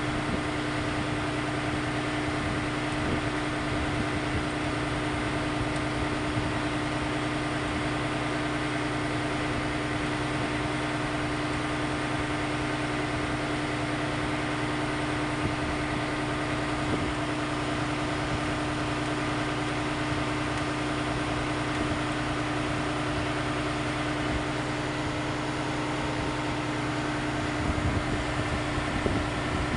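Steady drone of a ship's running machinery, with a strong constant hum and a few light knocks near the end.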